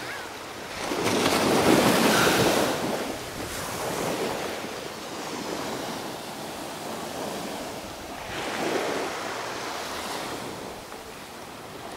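Small waves washing onto a sandy beach, with wind buffeting the microphone. The noise swells loudest a second or two in and again about three-quarters of the way through.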